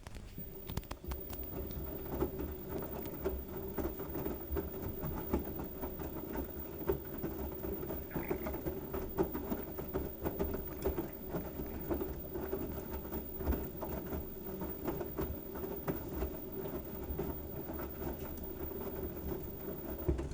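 LG washing machine running with a load of wet towels: a steady mechanical hum with dense, rapid rattling and clicking throughout.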